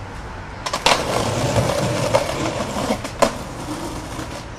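Skateboard wheels rolling over a concrete sidewalk, a steady rumble, with sharp clacks of the board as the skater steps on and pushes off, another clack about three seconds in, and a louder clack right at the end.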